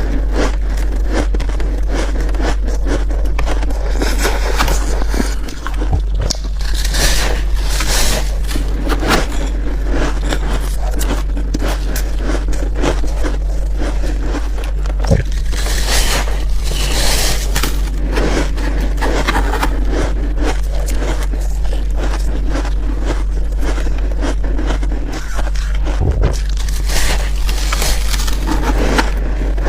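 Close-miked biting and chewing of soft, powdery freezer-frost ice: continuous irregular crunching and crackling, over a steady low hum.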